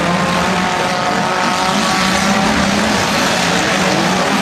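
Several demolition derby cars' engines running loudly together, with a wavering engine pitch over a steady rush of noise.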